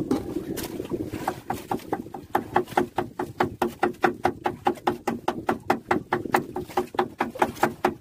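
Knife chopping fish bait on a wooden board: a quick, even run of knocks, about five a second, that starts about a second in and stops near the end.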